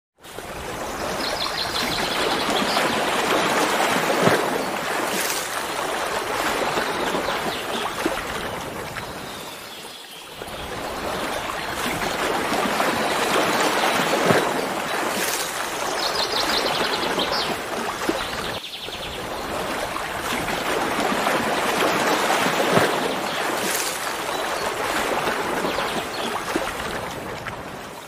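Rushing water: a steady hiss that swells and fades in long waves, easing off twice. A brief high trill sounds twice over it.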